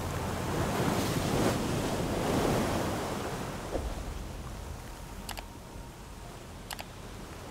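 A steady rush of wind and water that fades after about three seconds, then two short mouse-click sound effects about a second and a half apart as the like button of a subscribe banner is pressed.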